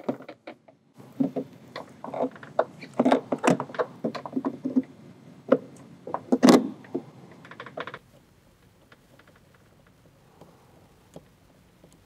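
Irregular clicks and knocks of the Ultra E Pro travel-trailer lock's plastic interior housing being handled and pressed against the door while its red knob is lined up with the deadbolt. The loudest knock comes about six and a half seconds in; the clicking stops about eight seconds in, leaving only a few faint ticks.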